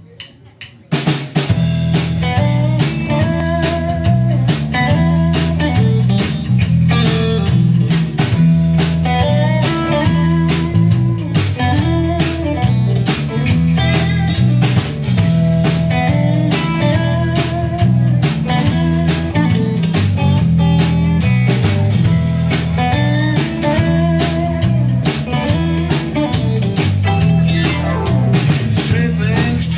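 Live rock band kicking into a song about a second in, after a few short clicks: electric guitars, electric bass and drum kit playing an instrumental passage at a steady, loud level.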